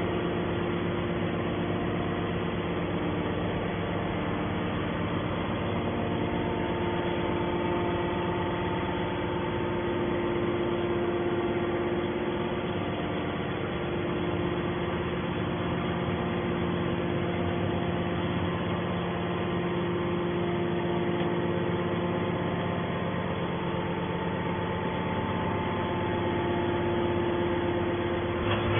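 Hydraulic scrap metal baler running: a steady machine hum with several held tones from its electric motor and hydraulic pump, the tones shifting slightly partway through.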